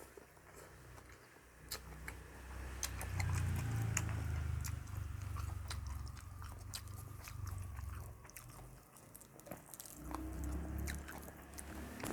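Close-miked eating of som tam with raw vegetables and pickled crab: chewing with many sharp crunches from bites.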